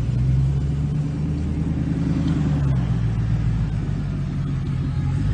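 Land Rover 4x4 engines running at low revs as the vehicles drive slowly across grass: a steady low engine note that changes a little under three seconds in, as one vehicle gives way to the next.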